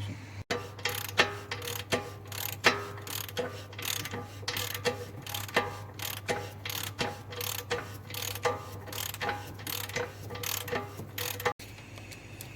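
Irregular metallic clicking, two or three sharp clicks a second, over a steady low hum: hand tool work on the cylinder head's intake camshaft bearing seats.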